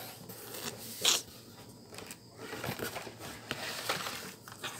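Rustling and scraping of cardboard and plastic blister-pack cards as carded toy cars are handled and pulled out of a cardboard case, with a louder scrape about a second in.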